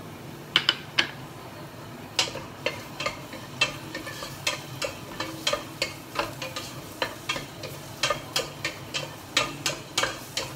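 Wooden spatula stirring garlic, onion and ginger sautéing in a little oil in a stainless steel pot, knocking and scraping against the pot about two or three times a second, with a light sizzle underneath.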